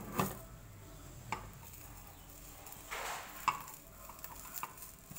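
A few scattered light taps of a metal spoon and spatula against a nonstick frying pan, with a short scrape about three seconds in, as a puffed sponge omelette is pushed about in the pan.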